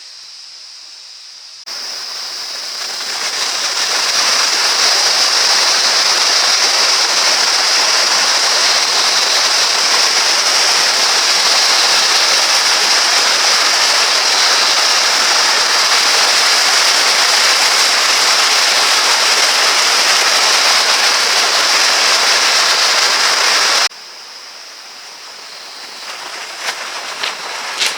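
Loud, steady rushing water of a mountain stream or waterfall. It starts abruptly about two seconds in, swells over the next couple of seconds, and cuts off suddenly near the end.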